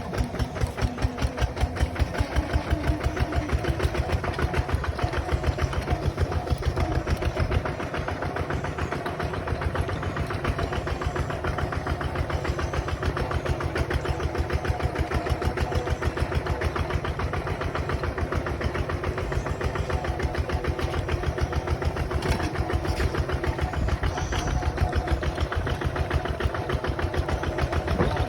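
Bulldozer's diesel engine running with a steady, evenly pulsing chug, easing off slightly about eight seconds in.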